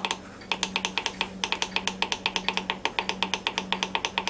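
Ninja Foodi control panel giving a rapid, even run of short electronic beeps as the cook timer steps up while the time-up button is held down.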